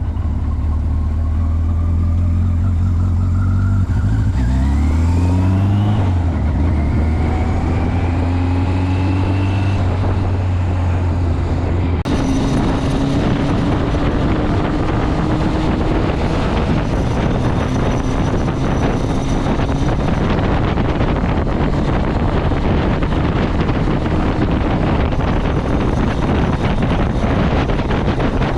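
Motorcycle engine running under way, with its pitch rising as it accelerates about four to six seconds in, then holding steady. From about twelve seconds on, a dense steady rush of wind and road noise with the engine underneath.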